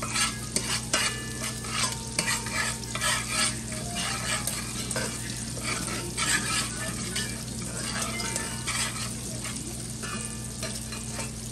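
A utensil stirring and scraping in an aluminium pot of curry powder frying in hot oil, over steady sizzling. The quick scraping strokes come thickest in the first half. This is the curry being toasted in the oil, 'burning the curry'.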